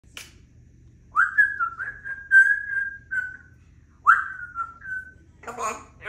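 Congo African grey parrot whistling two phrases of clear notes, each starting with a quick upward slide and then holding a steady pitch. A short raspy call follows near the end.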